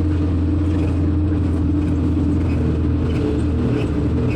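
A motor vehicle's engine running at a steady speed: a constant low hum with a few steady tones above it.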